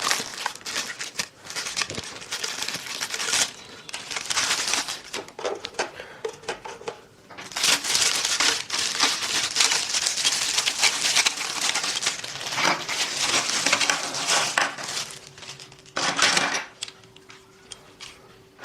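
Hard plastic filter pipes and fittings being handled and fitted together: scattered clicks, knocks and rattles, with several seconds of dense crinkling and rustling in the middle.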